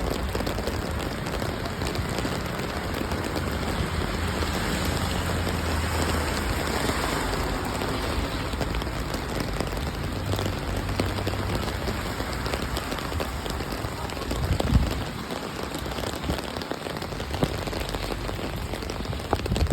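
Steady rain falling, an even hiss of drops on hard surfaces, with a low rumble under it in the first half and one brief thump about fifteen seconds in.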